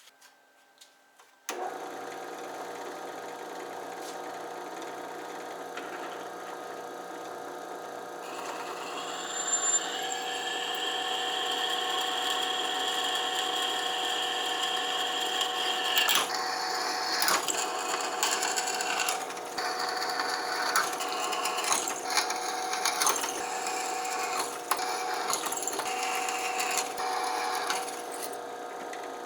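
Motor-driven wire wheel running steadily, starting suddenly about a second and a half in. From about eight seconds a higher whine joins, and from about sixteen seconds there is uneven scraping as steel spike hooks are worked against the spinning wheel.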